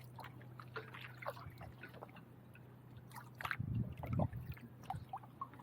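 Quiet kayak paddling: a paddle dipping and dripping, with small splashes and trickles of water, over a faint steady low hum.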